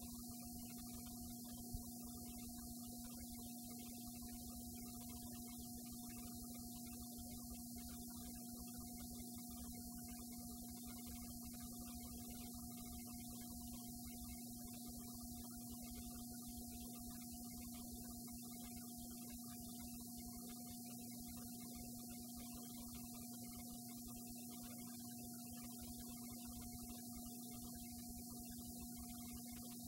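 Steady electrical hum: a low tone with a fainter higher tone over it and a thin hiss, with one faint tick about two seconds in.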